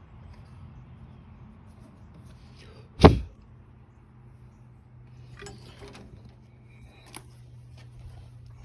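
A single sharp knock about three seconds in, followed by a few light clicks and taps, over a low steady hum.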